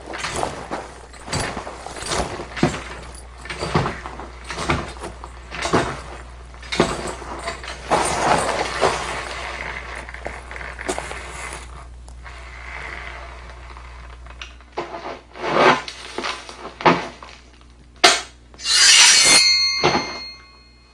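Foley sound effects being performed: a run of sharp knocks and thuds, about two a second, then near the end a loud crash that leaves ringing, glassy tones.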